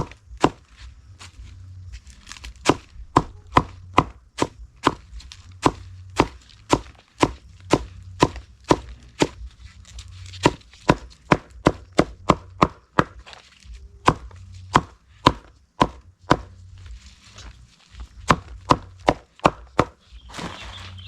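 Knife chopping vegetables in quick, steady strokes, about two sharp chops a second.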